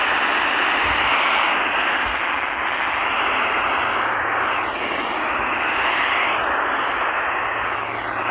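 Steady loud radio static hiss from a receiver with no signal, over a low hum.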